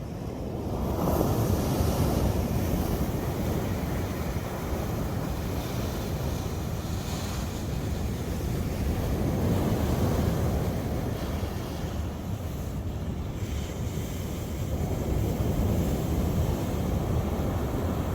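Sea waves breaking on the shore, the surf swelling louder and easing off in surges several seconds apart, with wind rumbling on the microphone.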